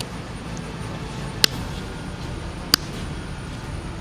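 Diagonal cutting pliers snipping and tearing the cardboard tube of an aerial firework shell, with two sharp clicks about a second and a half in and again near three seconds. A steady low rumble of background noise runs under them.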